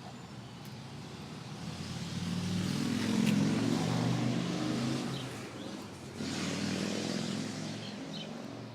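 A motor vehicle engine passing by outside, swelling to its loudest about three seconds in and fading, then a second swell from about six seconds in.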